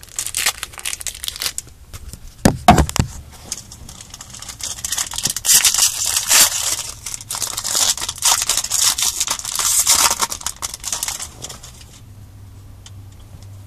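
Foil wrapper of a Yu-Gi-Oh booster pack being torn open and crinkled by hand: a dense run of crackling rustles, heaviest in the middle, with a few sharper snaps early on, dying away near the end.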